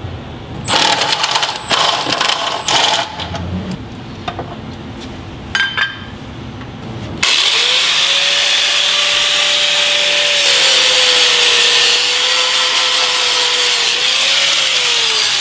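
Clattering and knocking of tools being handled, then about seven seconds in a power sander starts abruptly and runs with a steady hiss and motor whine, sanding bare metal on a car's rear cross member. Its pitch sags under load near the end.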